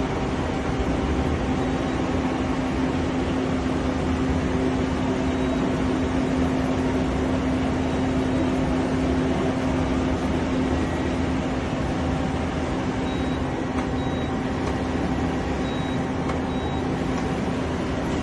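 Okuma ESL-10 CNC lathe running: a steady mechanical hum with one steady low tone, unchanging throughout.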